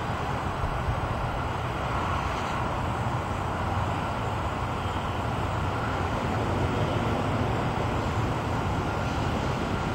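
Strong wind blowing steadily, rumbling on the microphone, as a small three-bladed wind turbine spins in it.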